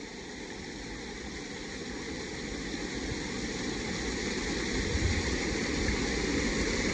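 Steady rush of flowing water, growing gradually louder.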